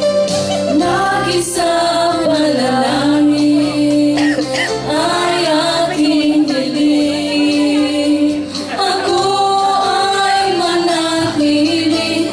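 A group of women singing a song together into microphones over an instrumental accompaniment of steady held notes.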